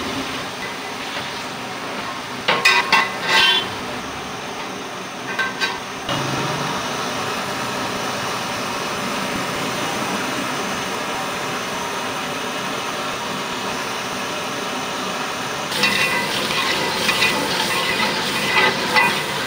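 Onion-paste korma gravy sizzling steadily in a large aluminium pot over a gas burner. A long metal ladle clinks against the pot a few times about 3 s and 5 s in, then scrapes and clinks repeatedly as the gravy is stirred from about 16 s in.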